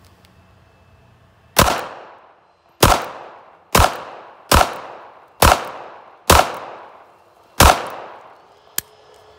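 Seven pistol shots in a steady string, about one a second, from a Ruger LCP .380 fitted with an aftermarket trigger, a 13-lb recoil spring and a stainless steel guide rod: a full magazine with a plus-one extension. A small click follows near the end.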